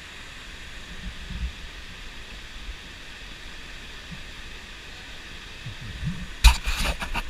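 Steady hiss of a waterfall pouring into a river, with a low rumble underneath. About six and a half seconds in, a cluster of loud, sharp knocks and crackles cuts over it.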